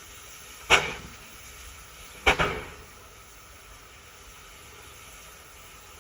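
Two sharp bangs about a second and a half apart, each with a short ringing tail, over a steady faint hiss.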